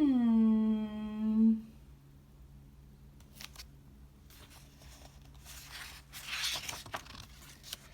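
A woman's hummed vocal sound at the start, falling in pitch and held for about a second and a half, followed by paper rustling and crackling as a picture-book page is turned.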